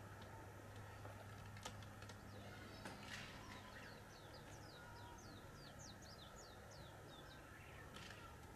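Faint song of a small bird: a quick run of about fifteen short, high notes, each sliding downward, lasting about four seconds, over a low steady hum with a few soft clicks before it.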